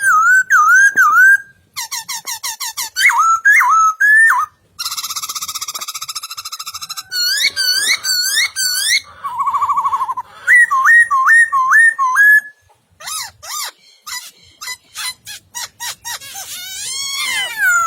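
Poksai laughingthrush singing a long, varied song: clear whistled slurs rising and falling, quick runs of clicking notes, a harsh buzzy note about five seconds in and a short low trill about ten seconds in, in phrases with brief pauses.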